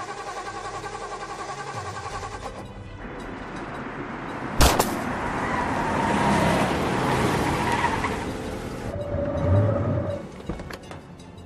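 Film soundtrack of a car pursuit: music and a car running, then a single sharp bang about four and a half seconds in and several seconds of loud car and tyre noise, with a few sharp cracks near the end.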